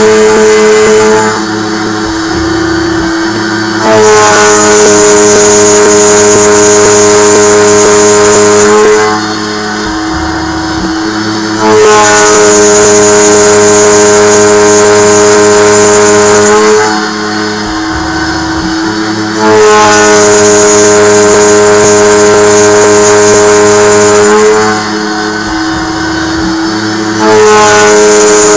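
2-flute 1/4-inch carbide end mill on a small CNC mill cutting 1018 steel dry, with a loud, pitched, ringing cutting noise. The cycle repeats about every eight seconds: a cutting pass of about five seconds, then a quieter break of about two seconds as the tool moves back. The cutter has gotten noisy, which the machinist takes as a sign that it is becoming dull.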